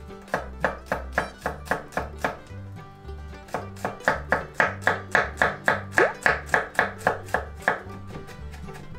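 Kitchen knife chopping on a cutting board in a steady rhythm of about three to four cuts a second: a short run, a brief pause, then a longer run that stops near the end.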